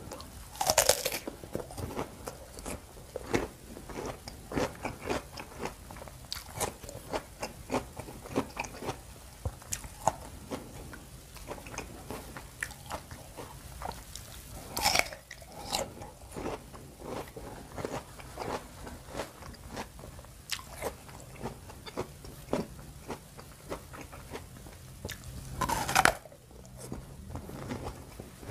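Close biting and chewing of crisp wax apple (jambu air) dipped in rujak sauce: a steady run of wet crunches, with louder bites about a second in, halfway through, and near the end.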